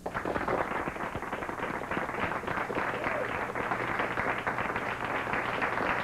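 Studio audience applauding, starting suddenly and keeping up steadily.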